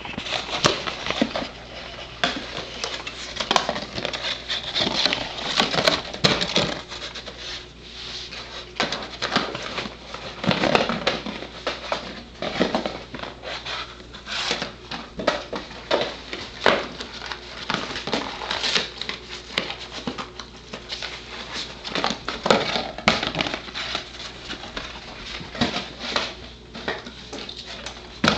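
A corgi nosing, pushing and tossing a closed cardboard box with biscuits inside, used as a treat puzzle: the box gives irregular knocks, scrapes and rattles throughout.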